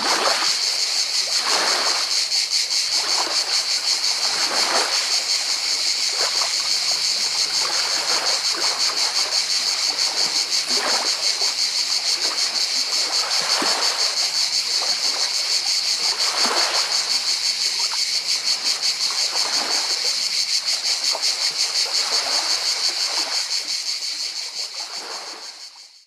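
Small waves lapping and washing over a pebble beach every second or two, under a steady, high chorus of cicadas. Both fade out near the end.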